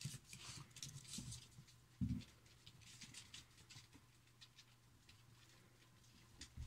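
Faint scuffling and ticking of dogs' claws and paws on a hard floor and a shaggy rug as puppies play with an adult dog, with a soft thump about two seconds in.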